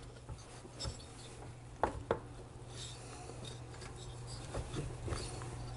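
Faint metal clicks and rubbing as nuts are threaded by hand onto the cylinder studs of a Harley-Davidson Evo engine, holding the freshly fitted cylinder down. A few sharp clicks are scattered through it, the clearest pair about two seconds in, over a steady low hum.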